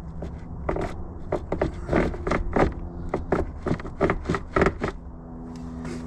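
A run of irregular knocks, clicks and scrapes from plastic dashboard parts being pried and pulled as the heater box is worked loose, over a steady low hum.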